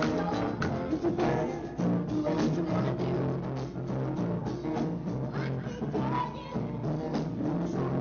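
Live band playing a rock-and-roll number on stage, with drums keeping a steady beat under the music and some singing.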